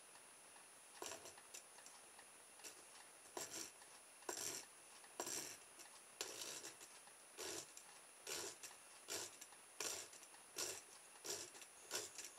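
Steel divider points scratching arcs into a plastic card, a series of short scrapes about one a second, while a propeller pattern is marked out.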